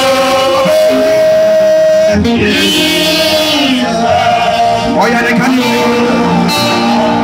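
Music: a man singing into a microphone over a backing track with guitar, holding long notes.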